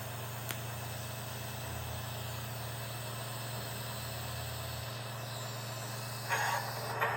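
TIG welding arc from an EWM Tetrix 230 AC/DC running steadily at low current, a constant hum with hiss. There is a single click about half a second in, and a brief louder rustle near the end.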